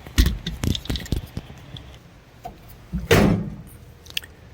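Microwave oven being handled: a few short clicks and knocks, then the microwave door shutting, the loudest sound, about three seconds in.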